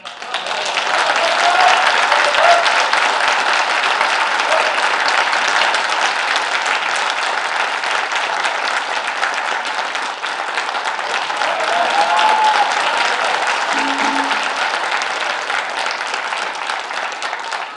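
Audience applauding steadily, with a few short cheers heard over the clapping.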